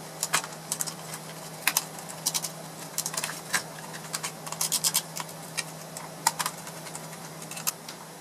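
Irregular clicks and light knocks of a Compaq laptop's plastic case and metal parts being handled and fitted back together, with a faint steady hum underneath.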